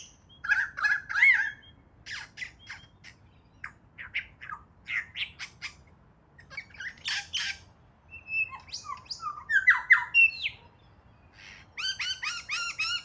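Superb lyrebird song: a varied string of squawks, chirps and sharp whistled notes in separate phrases, ending in a quick run of repeated rising notes, about five or six a second.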